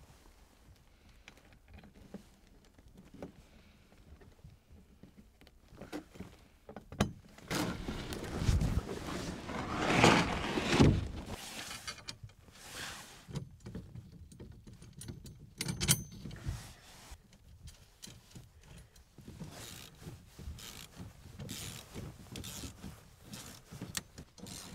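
Wrenches and steel hitch parts clinking and rattling while a bolt is tightened on a sled's tow bar, with scattered sharp metallic clicks and a louder stretch of handling noise near the middle.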